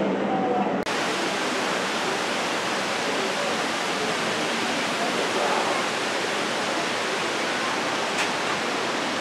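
Steady rushing noise, even from low to very high pitch, that begins abruptly about a second in and holds level; a faint click near the end.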